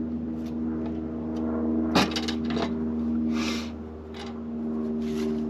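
Background music of held chords, with a sharp metallic click about two seconds in as a wrench works a brass flare fitting on a camper's LP gas line, followed by a few lighter clicks and two short scrapes.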